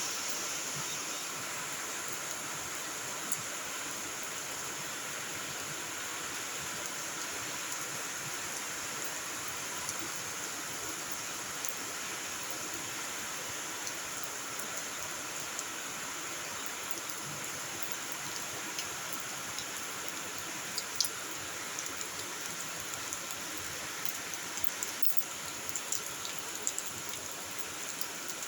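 Steady rainfall, a continuous hiss with scattered drips and drops ticking on surfaces, the ticks more frequent near the end.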